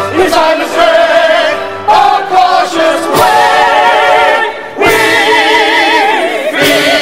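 A stage chorus singing a comic-opera number in held, wavering notes, with a short break between phrases about two-thirds of the way through.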